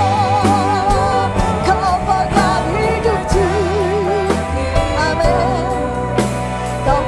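Live worship band playing a praise song: a lead vocalist sings long held notes with a wavering vibrato over a steady bass line and regular drum beats.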